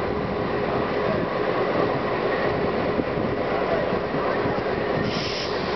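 Steel railway turntable bridge rotating, a steady mechanical rumble with a constant faint hum, and a brief high squeal about five seconds in.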